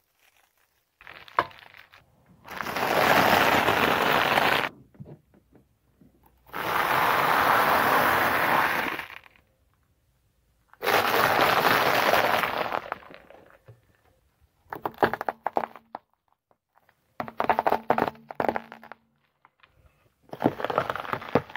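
A car tyre rolling over and crushing brittle things: a blister pack of gumballs, a pile of dry spaghetti and a row of lollipops. The crushing gives loud crackling, snapping crunches in three long bursts of about two seconds each, then shorter, choppier crackles toward the end.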